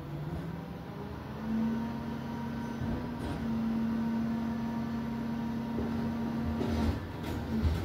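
McNeilus rear-loader garbage truck running a packing cycle: the engine steps up about a second and a half in, and the compactor's hydraulics give a steady whine. The whine stops near the end with a knock.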